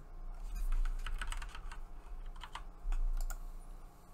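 Typing on a computer keyboard, a run of irregular key clicks.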